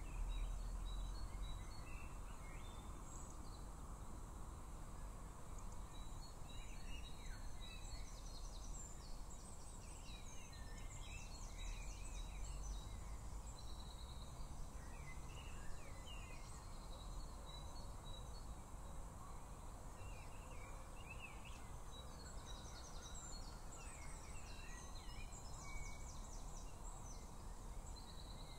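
Small songbirds singing, with high chirps and rapid trills coming and going, over a low steady rumble of outdoor background noise.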